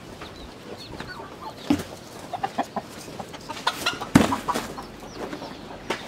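Chickens clucking, with a few faint high chirps early on and a sharp knock about four seconds in.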